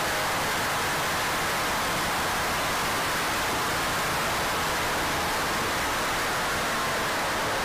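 Cabin noise of a 1984 Porsche 911 track car at speed on a circuit: its air-cooled flat-six and the wind blend into a steady rushing noise, like hiss, with a faint engine note wavering underneath.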